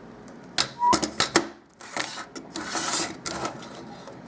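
Small metal and plastic parts of a car radio clicking and clattering as it is handled and pulled apart, in irregular sharp knocks, with a brief squeak a little before a second in.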